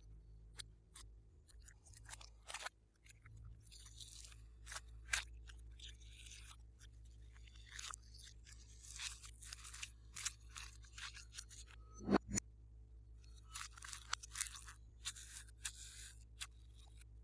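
Hands kneading and pressing glossy slime, making irregular sticky clicks, pops and crackles, with a louder pop about twelve seconds in.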